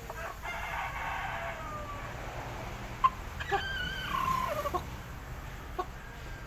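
A rooster crowing: a fainter crow about half a second in, then a louder wavering crow about three and a half seconds in that falls in pitch at the end. A few sharp clicks, the loudest just after three seconds.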